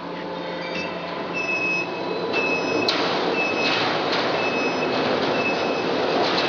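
Steel coil cut-to-length line starting up and running as the steel strip feeds through the leveller: a steady machine hum and rumble that builds over the first two seconds, with a high tone sounding on and off about once a second, and a single sharp click near the middle.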